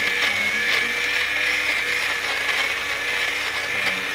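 Battery-powered electric fabric shaver running steadily over knit fabric: a constant high motor whine with faint scratchy ticks as its spinning blades cut off the pills.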